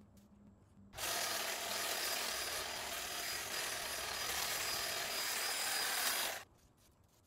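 Snapper 48V cordless hedge trimmer running and cutting through shrub branches: a loud, dense, steady noise that starts abruptly about a second in and cuts off sharply near the end.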